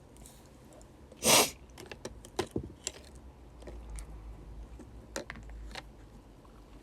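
A young woman sneezes once, short and sharp, about a second in. A few light clicks and taps follow.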